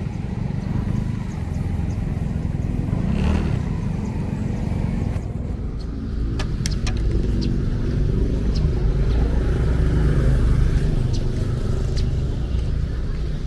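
Motor vehicle engine running, a steady low rumble, with a few sharp clicks about six seconds in.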